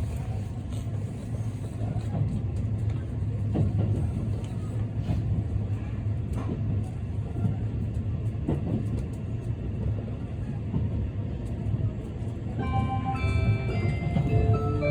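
Inside a moving limited express train: a steady low running rumble with occasional clicks from the wheels and car. Near the end the onboard announcement chime starts, a melody of bright bell-like tones that plays on over the rumble.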